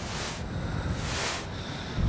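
Wind rumbling on the microphone during a snowstorm, with a hissing swish that repeats about once a second.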